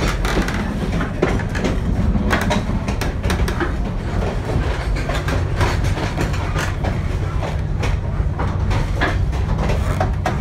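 Railway passenger coach rolling along the track, heard in the vestibule between cars: a steady low rumble with irregular clacks and rattles of the wheels and the coupling and gangway gear.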